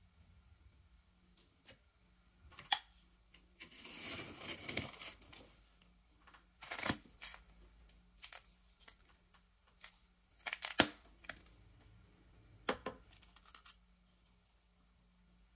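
Plastic snowball-maker scoop digging into and packing powdery freezer frost. It makes crunchy scrapes, the longest about four seconds in, with short sharp crunches or clicks scattered between them.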